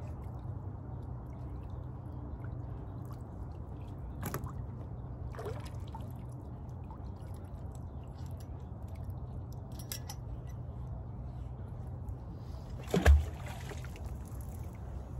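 Water dripping and trickling off a wet magnet-fishing rope as it is hauled up hand over hand, over a steady low rumble. A few light knocks, then one loud thump near the end.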